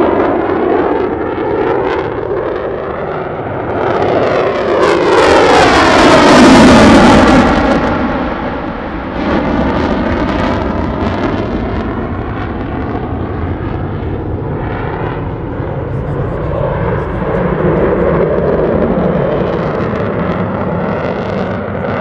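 F-22 Raptor's twin F119 afterburning turbofans in afterburner during a demo pass. It is loudest about five to seven seconds in, with a sweeping, falling pitch as the jet goes by, then keeps running steadily as it maneuvers.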